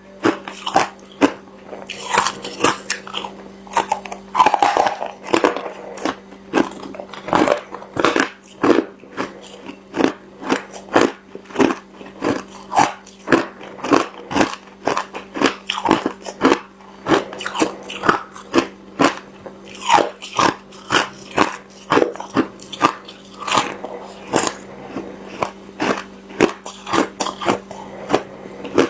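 Hard crushed ice being bitten and chewed close to the microphone: a long run of sharp, crisp crunches, roughly one to two a second.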